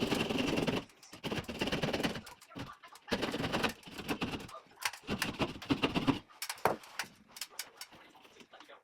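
Hand drywall saw cutting a fixture hole in ceiling sheetrock, in four spells of quick rasping strokes with short pauses between, then a few scattered clicks.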